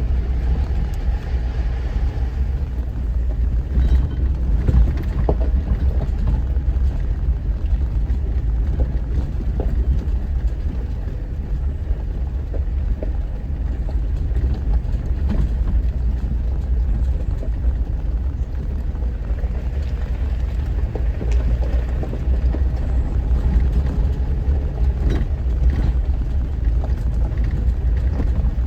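Off-road vehicle driving a rough trail: a steady low engine and road rumble with scattered short knocks and rattles.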